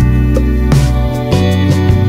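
Background music of plucked notes with a steady beat.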